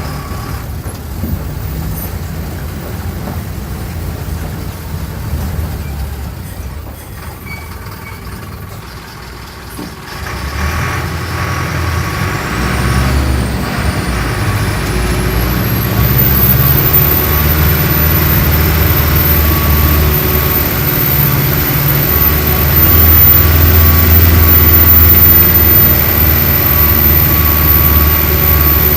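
Mercedes-Benz OF-1417 bus engine running low and steady, then, about ten seconds in, growing louder as it pulls under load, with the engine note shifting. A thin high whine rises and then holds steady over the engine.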